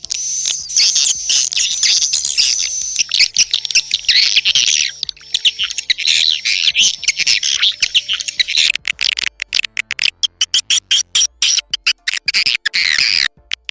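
A swiftlet call recording, the lure played to draw edible-nest swiftlets into a bird house: a dense, high twittering chatter of chirps. About two thirds of the way in it turns into rapid, stuttering pulses.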